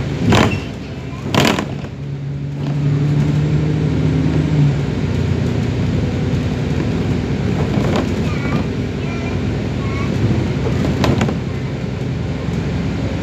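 Alexander Dennis Enviro 400 double-decker bus heard from inside while it drives: the engine runs steadily, its note stepping down about four and a half seconds in. Two short, loud bursts of noise come about a second apart near the start.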